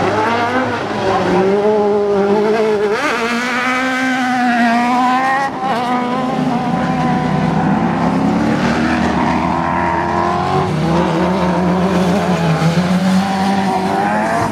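Autocross buggy engines revving hard, their pitch repeatedly climbing and falling as the cars race and slide on dirt, with a brief drop in sound about five and a half seconds in.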